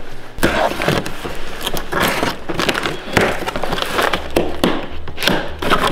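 Utility knife slitting packing tape along a cardboard box, then the box flaps being pulled open, with irregular crackles and scrapes of tape and cardboard.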